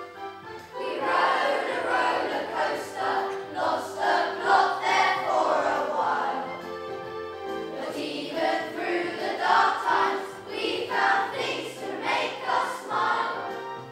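A group of children singing together in unison to instrumental accompaniment. The voices come in about a second in, after a short instrumental lead-in.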